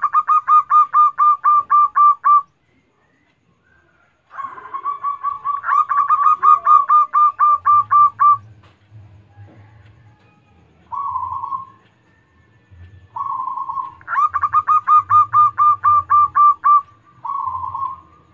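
Zebra dove (perkutut) singing: three long runs of rapid, evenly repeated cooing notes, about five a second, with shorter single coo phrases between the later runs.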